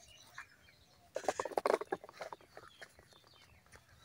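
Hard plastic toys clattering, a small plastic toy being set down among others in a plastic box: a short rattling clatter about a second in, then a few light clicks.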